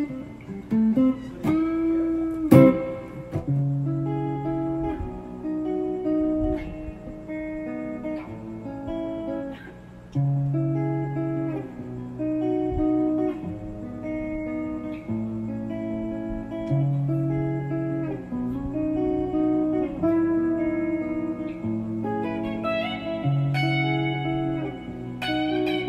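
Guitar music: plucked notes over a low bass figure that comes back every six or seven seconds.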